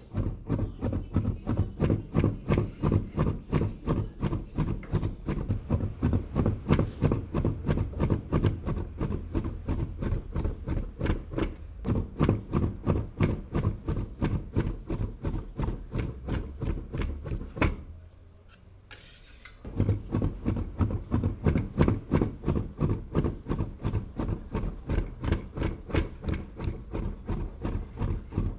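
A large crescent-shaped cleaver hand-mincing raw meat on a cutting board: fast, even chopping knocks, about four a second, with a short pause about two thirds of the way through.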